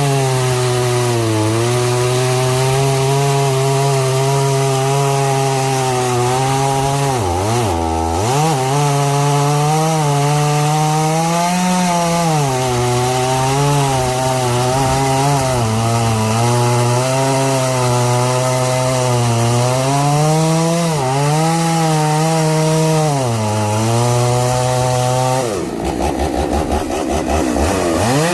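Vintage two-stroke chainsaw running at high revs while cutting wood. The revs drop hard once about a quarter of the way through and sag briefly a few more times. Near the end the engine note falls away and changes as the saw comes off full throttle.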